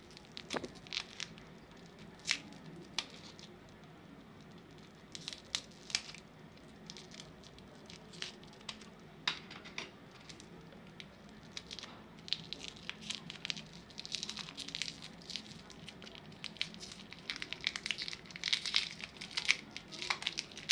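Crinkly foil lollipop wrapper being snipped with scissors and peeled off by hand: scattered sharp crackles and crinkles, coming thicker and faster in the second half.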